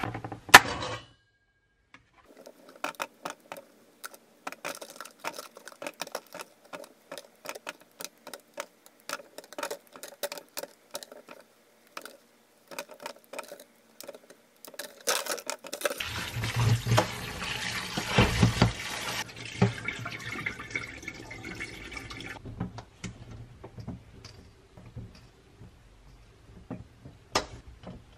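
Cherry tomatoes dropped one by one into a stainless steel bowl, making many small taps and knocks, with the plastic clamshell rattling. About halfway through, tap water runs into the bowl for about six seconds, then come wet handling sounds and drips as the tomatoes are moved into a mesh strainer.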